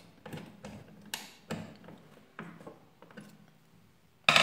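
Hand screwdriver turning a screw that fastens an amplifier IC to an aluminium heatsink on a circuit board: a run of short, irregular clicks and scrapes. A louder knock comes near the end.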